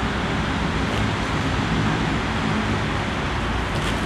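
Steady outdoor background noise, a continuous even rush with no clear strikes of blade on blade.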